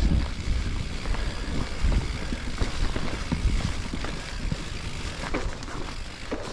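Specialized Levo electric mountain bike being ridden over a rough forest trail: a steady low rumble of tyres and air on the microphone, broken by frequent knocks and rattles. There are a couple of short squeaks near the end.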